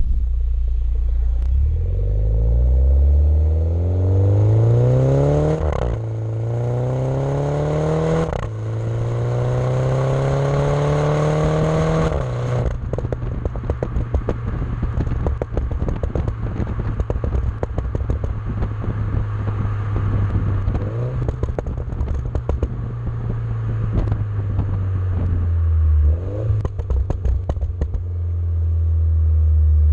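MINI John Cooper Works turbocharged four-cylinder through a Maxi-Tuner Hexagon valved exhaust, accelerating hard with revs rising through three gears and two quick upshifts. On lifting off about twelve seconds in, the exhaust crackles and pops on the overrun, with a couple of short rises in revs later on.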